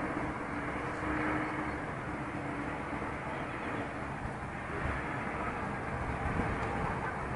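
Steady outdoor rumble with a faint engine hum and no single standout event.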